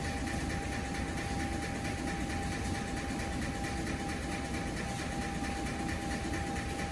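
Steady drone of factory machinery on a pigment plant floor, with a constant tone running through it and no distinct events.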